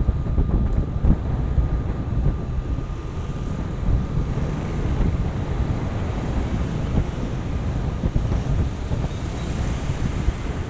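Wind rumbling over the microphone, with a faint steady high tone underneath.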